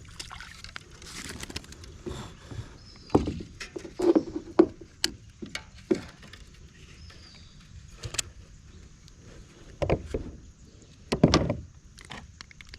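A largemouth bass being landed and handled in a kayak: irregular knocks, thumps and rattles against the boat. A cluster of louder strokes comes about three to five seconds in, and two more near the end.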